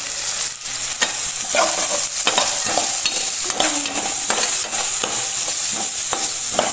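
Chopped onions sizzling in hot coconut oil in a pan, stirred with a steel spatula that scrapes and knocks against the pan again and again.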